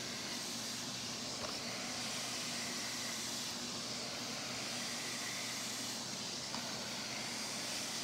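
Hoover SmartWash carpet cleaner's suction motor running steadily, with a hiss of air and water being drawn up through the stair tool as it passes over carpet.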